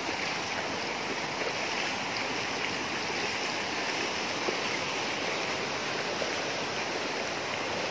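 Muddy floodwater rushing steadily across a flooded road.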